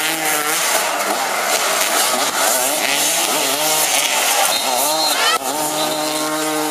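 Several high-revving racing engines, their pitch rising and falling as they rev and pass, with a steady held note in the last second or so.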